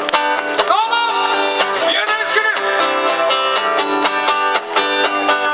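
Live music: a strummed acoustic guitar with a wavering melody line over it, played through a stage PA.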